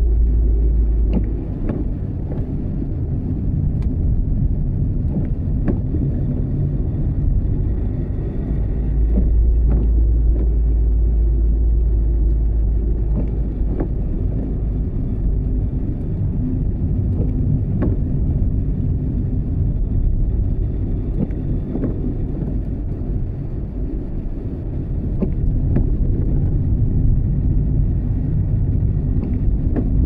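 Rain with a steady low rumble underneath and scattered drops tapping close by.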